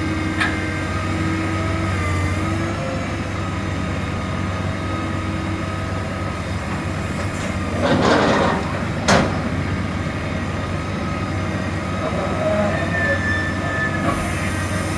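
Heavy machinery running steadily: a low engine drone with a wavering whine above it. There is a short swell of noise about eight seconds in and a single sharp knock about a second later.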